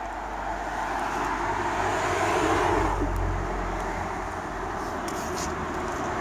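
A motor vehicle passing on the street: a steady rumble and road noise that swells to a peak about halfway through, then fades.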